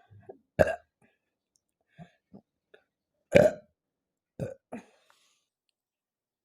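A woman burping after drinking Pepsi, the gas of the fizzy soda coming up: one short loud burp about half a second in, the longest and loudest a little past three seconds, then two shorter ones about a second later, with faint small sounds between.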